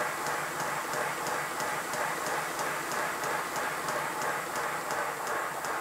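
5-inch gauge model "Lion" steam locomotive running on a bench test: a rhythmic hiss of exhaust from its cylinders with a sharp tick about three times a second from the turning motion.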